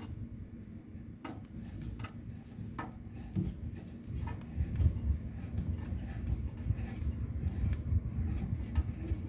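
A screw being driven by hand into a part of a radial arm saw: scattered small clicks and scraping, with low handling rumble that grows louder about halfway through.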